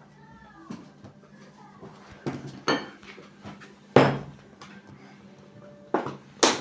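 Kitchen clatter: utensils and dishes knocked and set down, about six sharp knocks with the loudest about four seconds in.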